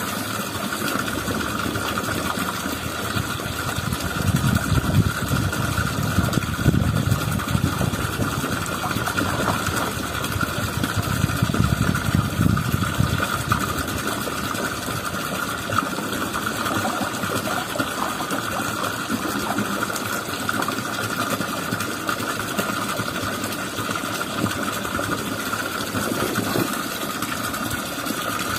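A small engine runs steadily at an even speed, a constant hum over a low rumble that swells slightly a few times.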